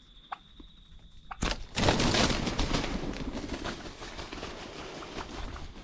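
A small sharp snap, then about a second and a half in a sudden loud burst of wing-beats and branch crashing that fades over several seconds: wild turkeys flushing from their roost tree after a slingshot shot that missed.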